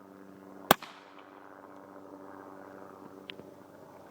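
A single suppressed rifle shot from a 300 AAC Blackout with a Surefire 7.62 suppressor, firing a subsonic load: one sharp report with a short fading tail, about a second in. A faint click follows about three seconds in, over a steady low hum.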